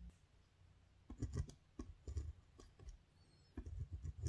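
A pen writing on paper: quiet scratches and taps in short clusters as each pen stroke goes down, with dull knocks of the pen against the writing surface.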